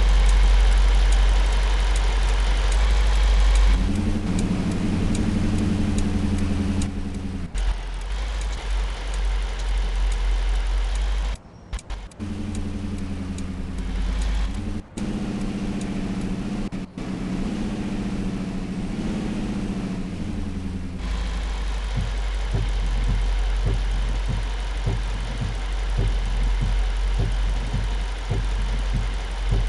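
Toyota Tundra pickup being driven: engine hum rising and falling in pitch with the throttle over a steady road and tyre hiss, broken by several abrupt cuts. In the last third the engine tone fades and uneven low thumps from the road take over.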